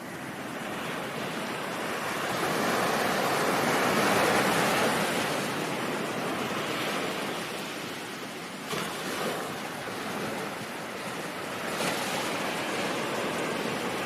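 Ocean waves washing in. The noise swells to a peak about four seconds in and recedes, with two brief sharper surges in the second half.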